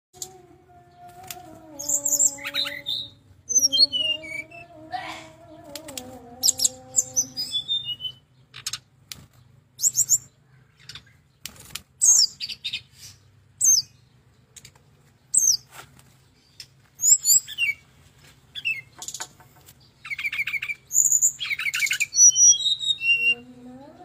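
Brown-chested jungle flycatcher singing in a cage: sharp high chirps and short rapid trills in broken phrases, with short clicks between them. A lower wavering tone runs underneath for the first seven seconds or so.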